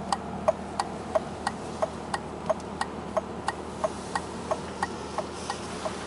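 Hazard-light flasher relay of a 1999 Mercedes-Benz ML320 ticking steadily, about three clicks a second, over the low hum of the idling engine.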